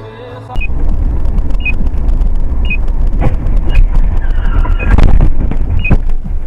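Dashcam audio of a car crash: heavy road and engine rumble with loud collision impacts about three seconds in and again about five seconds in. A short electronic beep repeats about once a second throughout.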